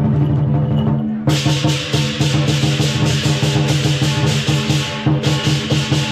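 Lion dance percussion ensemble: a lion drum beating with cymbals clashing in a fast, continuous rhythm. The cymbal crashes come in sharply about a second in.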